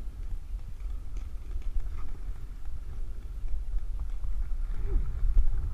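Footsteps on dry dirt with a few faint clicks, over a low, uneven rumble on the microphone.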